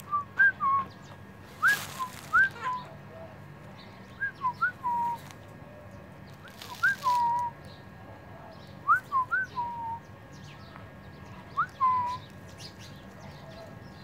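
A clear whistle repeated in short phrases of two or three notes, each note flicking up and then sliding down, coming every two to three seconds.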